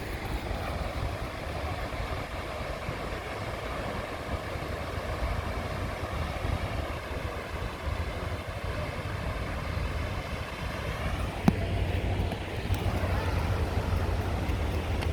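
Wind buffeting the microphone with a low rumble over the wash of surf, with a steady engine hum underneath that fades after about eleven seconds. A single sharp click comes about two-thirds of the way through.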